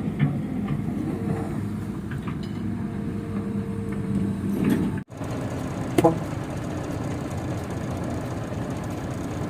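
Heavy diesel engine running steadily, with a single sharp metallic clank about six seconds in.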